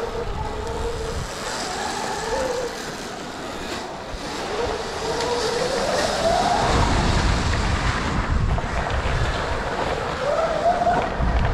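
Electric dirt bike motor whining, its pitch rising and falling with the bike's speed. Low rumbling wind on the microphone grows stronger in the second half.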